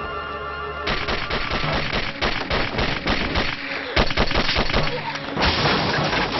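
Gunfight sound effects: a rapid string of pistol shots and impacts starts about a second in, over a dramatic music score.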